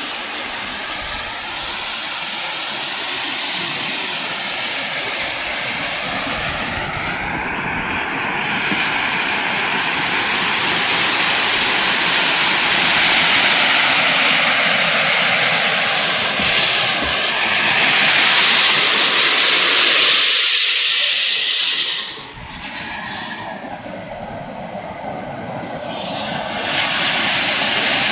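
Steady rushing noise of a moving bicycle ride: wind over the microphone with tyres rolling. It swells louder in the middle, drops off sharply about three-quarters of the way through, then rises again near the end.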